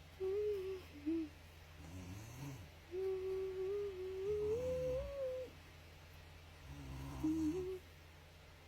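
A person snoring: low snores about every two seconds, with a wavering whistle-like tone over them. The longest tone comes in the middle and rises in pitch near its end.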